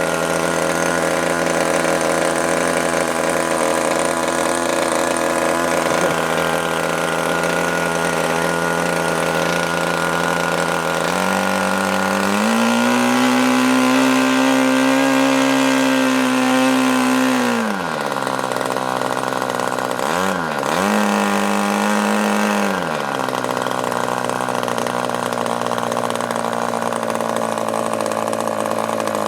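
OS MAX 40 two-stroke model glow engine running on the bench, newly freed from seizure. It runs steadily, speeds up about eleven seconds in and holds the higher speed for some six seconds, then drops back, with two short rises soon after before settling again.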